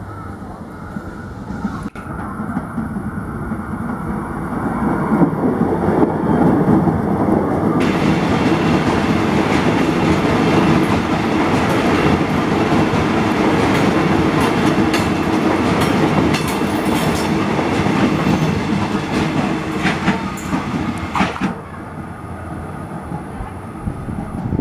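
Airport Railink electric train passing close by, its wheels rumbling and clacking over the rail joints. It grows louder over the first few seconds, stays loud, with a run of sharp clacks near the end of the pass, and falls away about three seconds before the end.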